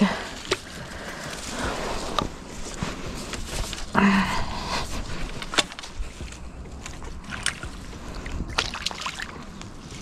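Water sloshing and splashing as a hooked small bream is played in to the bank, with scattered clicks of handling.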